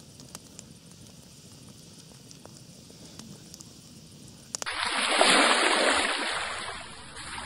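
A wood campfire crackling faintly, with a few small pops over a steady high hiss. About four and a half seconds in, a sudden loud water-splash sound effect, a rushing splash that swells and fades over about two seconds.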